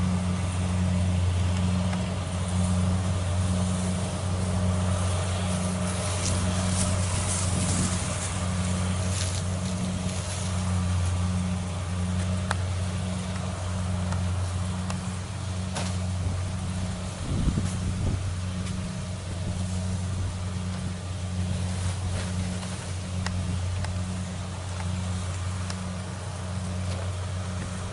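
Kubota DC70 Plus combine harvester's diesel engine running steadily, a deep hum with a regular pulsing throb over it. A brief louder rumble comes about two-thirds of the way through.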